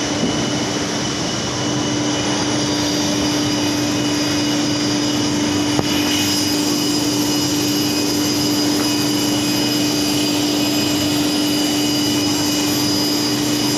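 Plywood factory machinery running: a loud, steady drone with a constant low hum and a hiss.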